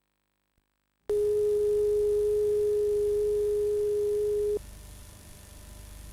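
A steady single-pitched electronic tone from the start of a VHS tape, beginning suddenly about a second in and cutting off abruptly after three and a half seconds, followed by faint tape hiss and low hum.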